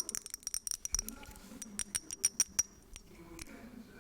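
Quick runs of light, sharp, ringing taps and clicks on a glass perfume bottle, in the first second and again around two seconds in.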